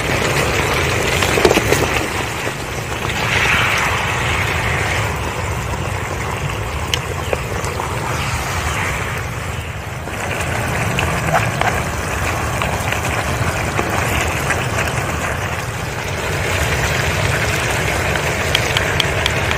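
Pomfret simmering in chili sauce in a frying pan over a wood fire: a steady bubbling sizzle with small crackles, the crackling getting busier near the end.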